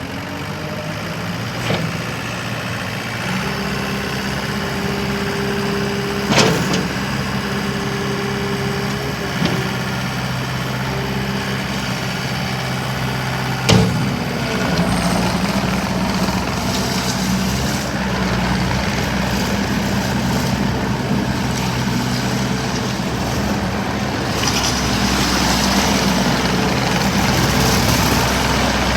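2013 New Holland C227 compact track loader's diesel engine running steadily, with four sharp knocks in the first half. The engine grows somewhat louder about halfway through and again near the end.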